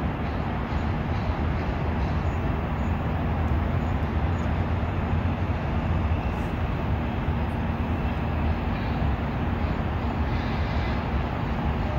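Steady low rumble and hiss of outdoor city noise, with a constant low hum running through it.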